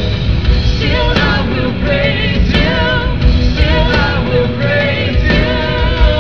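Live contemporary Christian worship band playing: a woman singing lead with vibrato over bass guitar, guitar and drums.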